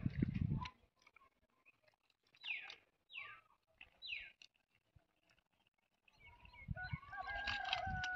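Birds calling outdoors: three quick falling whistles in the middle, then a longer wavering call near the end. Low rumbling noise comes at the very start and again under the final call.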